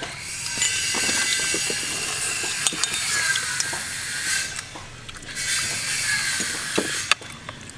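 Metal spoon clinking and scraping against a cooked shell while scooping out the meat, in scattered sharp clicks. Behind it runs a steady high hiss that drops away for about a second near the middle, then returns.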